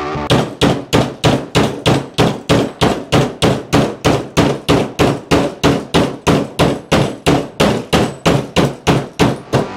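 Ball-peen hammer striking a flat steel bracket strip clamped to a workbench edge, bending it over into a fog-light bracket. The blows fall in a steady, even rhythm of about three a second, each a sharp metallic clang.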